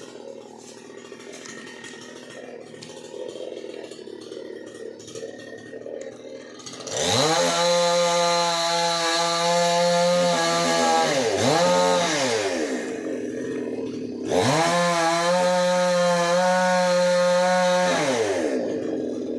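Chainsaw idling, then revved hard twice. The first run lasts about five seconds with a brief let-off and pick-up near its end; the second lasts about four seconds. Each time the pitch rises sharply and then falls back to idle.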